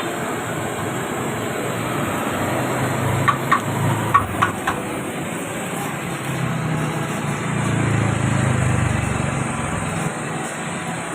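Steady motor-vehicle engine noise with a low hum that swells twice, and a quick run of five sharp clicks or taps about three to five seconds in.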